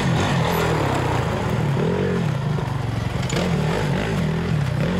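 Off-road dirt bike engine running, its revs rising and falling over and over as the rider works the throttle.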